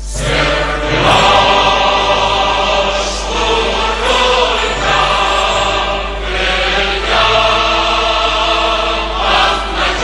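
Intro music with voices singing or chanting over a steady low drone.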